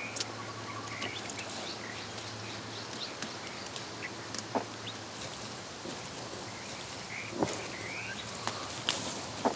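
Small birds chirping in short repeated calls over a steady outdoor hiss. Through it come a few sharp snaps and leaf rustles, the loudest near the end, as aronia (chokeberry) clusters are picked by hand from the bush.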